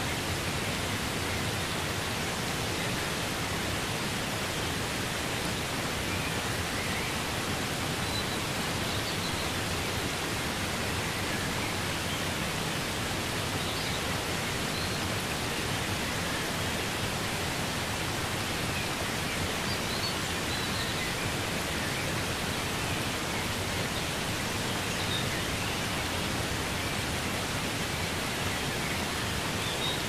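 Waterfall: a steady, unbroken rush of water pouring down over rocks.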